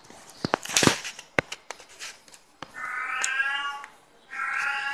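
A few sharp clicks and knocks from a metal collet holding a small carbide milling cutter being handled in the fingers, followed by two drawn-out pitched animal cries, the second still going at the end.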